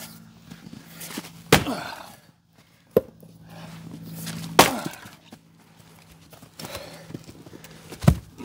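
Splitting maul, the Fiskars IsoCore 8 lb, striking a firewood round on a chopping block: a sharp crack about a second and a half in and another, the loudest, about four and a half seconds in, each with a brief splitting ring. Smaller knocks of wood come about three seconds in and near the end.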